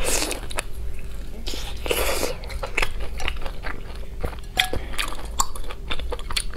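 Close-miked eating sounds: a bite into a sauce-coated fried piece right at the start and another noisy bite about two seconds in, with wet chewing and many small mouth clicks between them.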